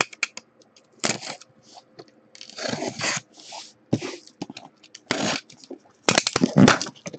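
Cardboard shipping case being handled and its packing tape cut and torn open: a string of scrapes, crackles and clicks, with a longer tearing rasp a few seconds in and the loudest tearing near the end.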